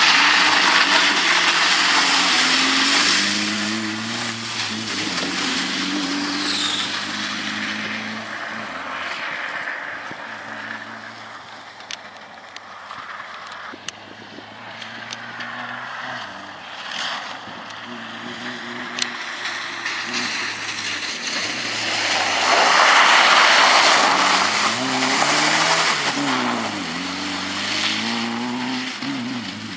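Peugeot 205 rally car driven hard on a wet dirt track, its engine revving up and down through gear changes. Loud rushes of spray and tyre noise come as it passes close, at the start and again after about twenty-two seconds.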